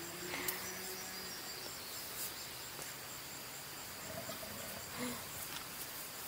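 Steady chorus of summer insects: a continuous high buzz with a faster pulsing trill above it, and a few faint clicks or rustles.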